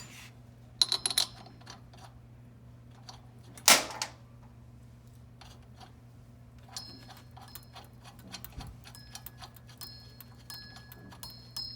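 Metal hand tools and bolts clinking during valve bolt-up: a few ringing metal clicks about a second in, a loud metal clank near four seconds, then quick irregular ticking with short high ringing, like a ratchet and socket working a bolt, over a steady low hum.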